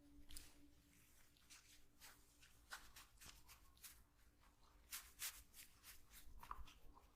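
Faint, soft rubbing and brushing sounds of hands massaging skin and hair, a dozen or so light, irregular strokes with a couple of slightly louder ones about five seconds in.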